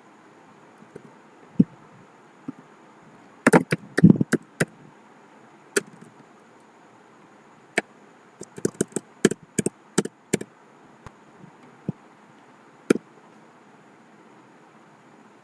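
Keys on a computer keyboard being pressed: two quick flurries of clicks, about three and a half and eight and a half seconds in, with single clicks scattered between.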